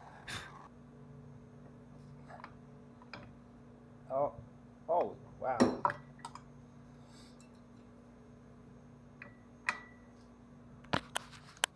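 A propane torch's hiss, heating a Loctited bolt, cuts off about half a second in. Scattered metal clinks, clicks and a ping follow from hand tools on the torque tube's coupler bolts, with a few short squeaky sounds near the middle and two sharp clicks near the end.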